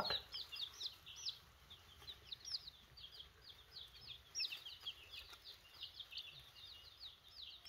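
Baby chicks peeping: a steady stream of short, high peeps, several a second, overlapping from many birds.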